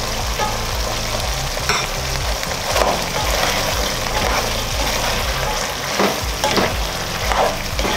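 A pot of pork and liver stew cooking on the stove, sizzling steadily, as raw potato strips are stirred into it with a spatula. Several scraping stirring strokes stand out along the way.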